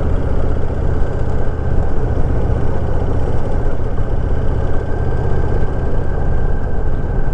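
Honda VTX 1300R's V-twin engine running steadily under load as the motorcycle climbs a long mountain grade.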